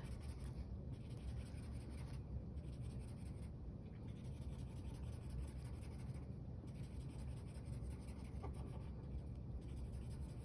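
Green Crayola marker scribbling back and forth on a paper worksheet while colouring in; a faint, steady scratching with a few short breaks between strokes.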